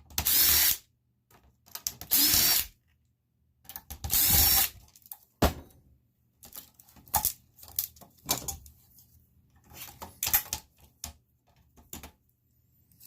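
Power drill-driver backing screws out of an ethernet switch's aluminum case in three short bursts, followed by scattered clicks and knocks.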